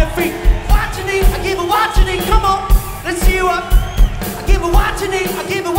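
Live rock band playing with a steady kick drum beat about twice a second, and a voice or lead line sliding in pitch over it.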